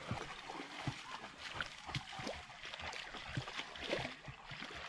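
Feet and a dog stepping through a shallow, rocky creek: irregular small splashes and knocks of stones over the trickle of the running water.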